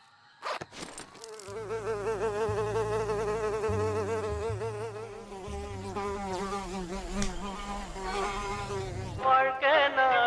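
A flying insect buzzing close by, its pitch wavering up and down as it moves about, over low droning tones that shift in steps. Near the end a louder warbling pitched sound comes in.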